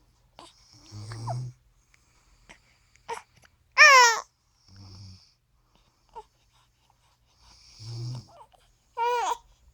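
A person snoring: short low rasping snores come every few seconds, mixed with two high, wavering squeals, the louder one about four seconds in and another near the end.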